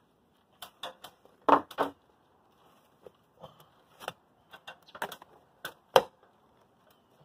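Hammer and flat steel pry bar working old wooden window trim loose: about a dozen sharp, irregular knocks of metal on metal and wood, the loudest about a second and a half in and again near six seconds in.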